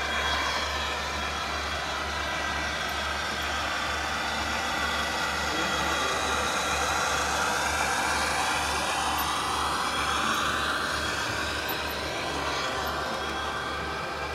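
HO scale model Amtrak passenger train running steadily along the track, led by a diesel locomotive, with a continuous mechanical running sound.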